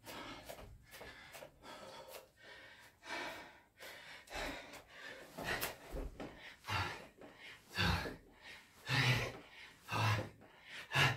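A man breathing hard from exertion during burpees and push-ups: short, forceful breaths about once a second that grow louder toward the end.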